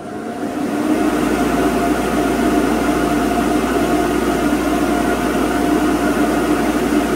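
ILG 10-P centrifugal volume blower, driven by its 1/3 hp single-phase 115 V motor, coming up to speed in the first second and then running steadily: an even rush of air with a steady hum and whine. The repaired motor is running normally, with a reducer ring on the outlet giving it back pressure.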